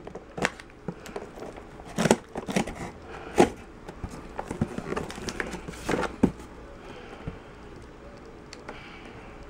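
Scissors cutting and scraping along the taped seam of a cardboard parcel: irregular clicks, rustles and crinkles, quieter in the last couple of seconds.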